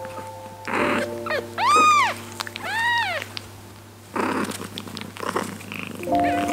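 A newborn kitten mewing twice, two high thin cries that rise and fall, about a second apart, over soft background music with held notes. Short rustling noises come before and after the cries.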